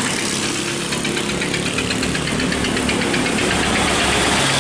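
A long-tail boat's stern-mounted engine running as the boat passes at speed, with a fast mechanical rattle over the engine note.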